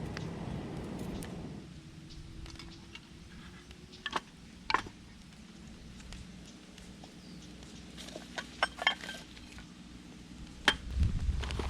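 A few scattered light clinks and knocks of camp dishes and utensils being handled, after a steady rustling noise that stops about two seconds in.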